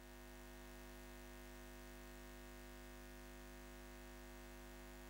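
Faint, steady electronic drone: a held hum of several tones that fades out near the end.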